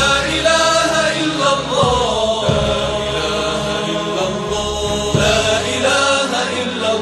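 Chanted Islamic devotional song (nasheed): voices holding long melodic notes that bend gently in pitch.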